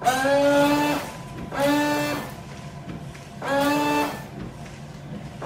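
Jeep Patriot's electric windshield washer pump run in three short bursts of about a second each, a steady whine that rises slightly as each burst starts. The washer is being tested for leaks at a newly fitted nozzle's hose connection.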